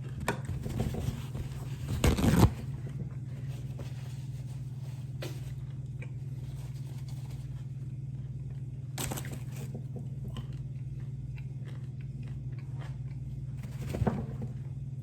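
Crunchy food being bitten and chewed close to the microphone, loudest about two seconds in, with a few shorter crunches later, over a steady low hum.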